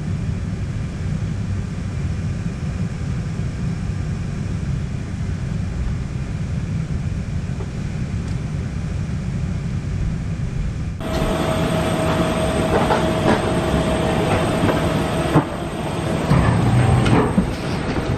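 Steady low rumble inside the cabin of a Boeing 737-900ER parked at the gate. About eleven seconds in it cuts to a jet bridge: a steady hum with scattered footsteps and knocks as passengers walk off the plane.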